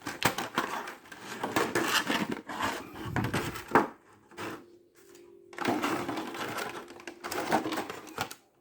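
Plastic packaging crinkling and clicking as an action figure and its parts are handled out of the box, in bursts with a short lull about halfway.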